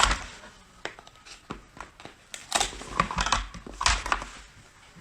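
Crab leg shell being cracked open: scattered sharp cracks, then bursts of crunching and crackling from about halfway through.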